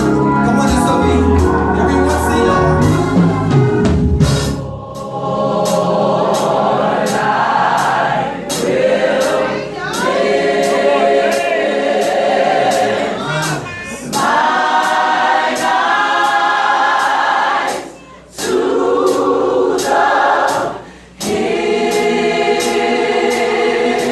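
Gospel choir singing sustained chords in harmony. Low accompaniment sounds under the first four seconds or so, then drops away and leaves the choir alone. The chords break off briefly twice near the end.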